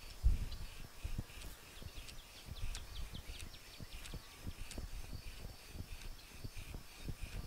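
Bow drill being worked for a friction fire: the wooden spindle rasping in the hearth board under repeated bow strokes, with knocks of handling. Birds chirp a few times in the middle.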